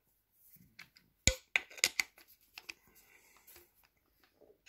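Metal clicks and clinks of a T-handle hex key working the steel milling-machine vise, with a scatter of sharp ticks; the loudest click comes about a second in.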